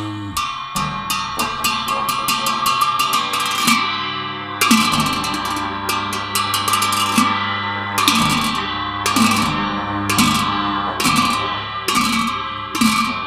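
Tibetan ritual cymbals and drum played together: a quickening run of ringing cymbal strokes, then heavy strokes about once a second with lighter strokes between, each cymbal clash ringing on over a deep drum beat.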